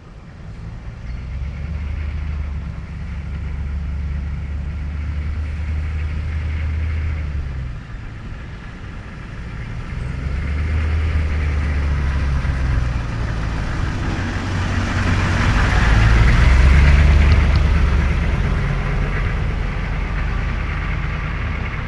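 Chevrolet M1008 CUCV military pickup with a 6.2-litre V8 diesel driving by, a steady low rumble that grows louder as it passes about fifteen seconds in, then fades as it pulls away.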